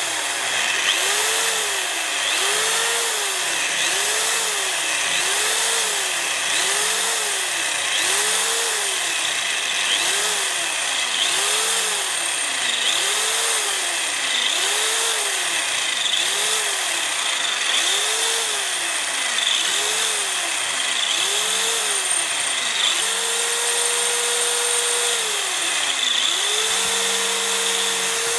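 Hand-held electric drill boring into a steel plate held in a vise. The motor's pitch sags and comes back up over and over, about every second and a half, then holds steady for the last few seconds, over a steady hiss of the bit cutting metal.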